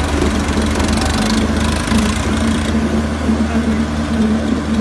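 Diesel engines of a Swaraj 963 FE and an HMT 5911 tractor running steadily under load, chained back to back and pulling against each other in a tug-of-war.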